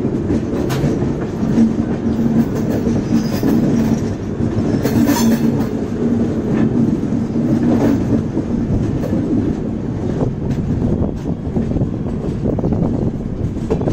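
Express train of LHB coaches running along the track: a steady low rumble and hum from the wheels and coach, with occasional sharp clicks.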